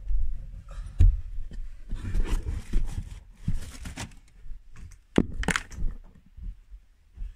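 Footsteps and camera handling noise: irregular low thumps with rustling and crackling, and two sharp snaps about five seconds in.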